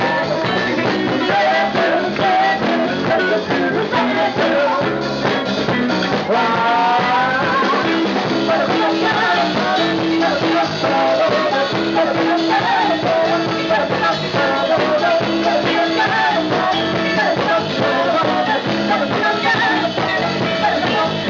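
Disco cover music played by a live band: a singer over a steady dance beat.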